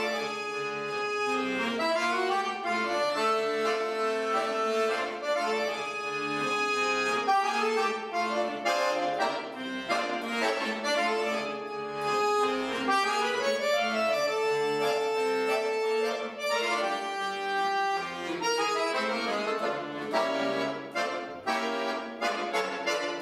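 Solo piano accordion playing a concert piece: long held reed notes under quicker runs of notes, without a break.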